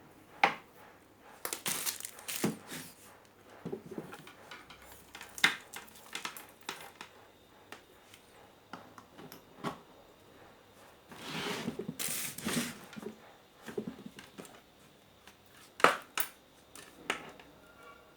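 Irregular clicks, taps and knocks of small hard objects being handled, with a longer scraping rustle about two-thirds of the way through.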